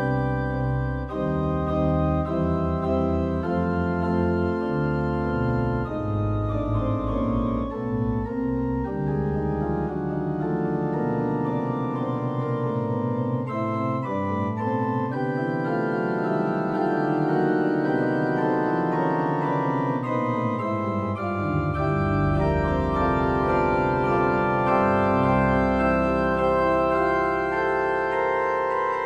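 Electronic organ playing an improvised piece in held, sustained chords. The deep bass notes drop away in the middle and come back in strongly about two-thirds of the way through.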